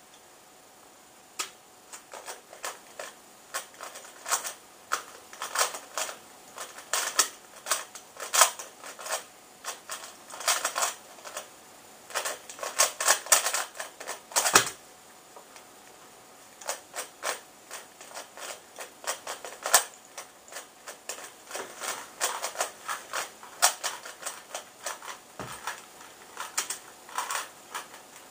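Rubik's cube being turned fast by hand: rapid runs of plastic clicking as the layers snap round during a speedsolve, starting about a second in. Partway through the clicking stops for a couple of seconds with one dull thump, then fast turning starts again.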